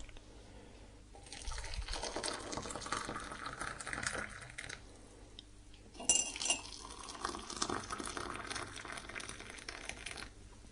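Water being poured while tea is made, with a sharp clink of crockery about six seconds in.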